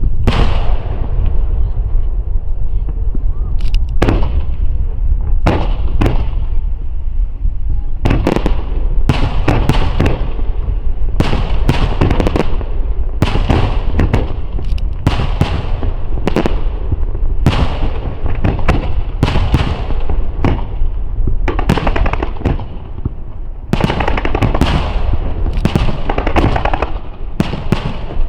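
Aerial fireworks barrage (a starmine): shells bursting in rapid, overlapping succession, sharp bangs with crackling tails over a continuous low rumble, thinning briefly about two-thirds of the way through.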